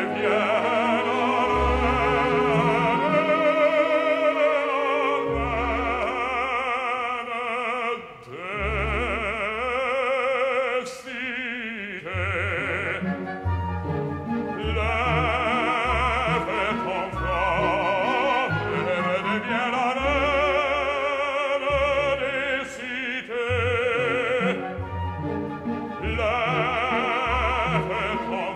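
Operatic bass singing sustained phrases with wide vibrato, accompanied by full orchestra, with brief breaks between phrases.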